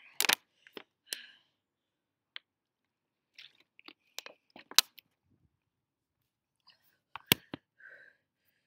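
Handling noise from a phone being picked up and set back down: irregular sharp knocks and clicks with short rustles between them, the loudest about five seconds in.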